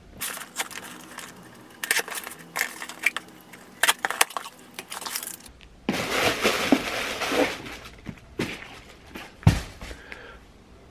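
A cardboard shipping box being opened by hand: a knife slitting and scraping along the packing tape with crackling and clicking, then a loud rustle of cardboard flaps and packing about six seconds in, and a sharp thump near the end.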